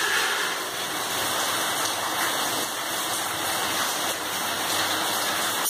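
A steady rushing hiss like running water, cutting off abruptly at the end.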